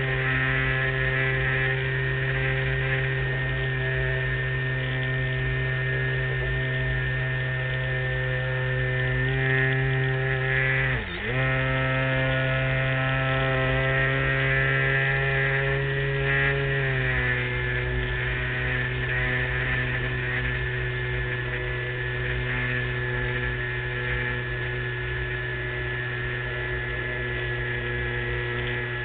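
Motor and propeller of a LazyBee RC model airplane in flight, a steady pitched drone. It dips for a moment about eleven seconds in and drops a little in pitch a bit past halfway.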